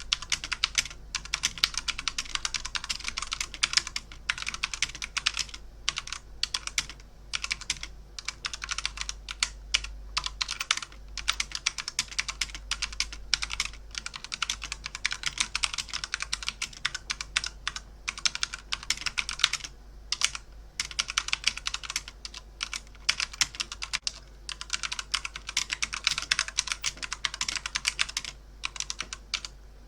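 Fast typing on a computer keyboard: a dense clatter of key clicks in quick runs, broken by short pauses every few seconds.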